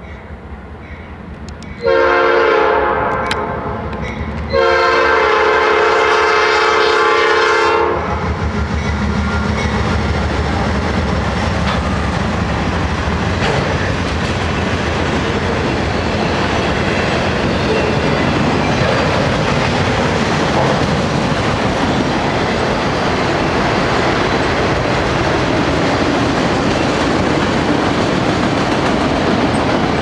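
A Norfolk Southern GE Dash 9 lead locomotive sounds two loud air-horn blasts for a grade crossing: a shorter one about two seconds in that fades, then a long blast of about three seconds. After that the locomotives pass and a long train of autorack cars rolls by with a steady rumble and wheels clacking over the rail joints.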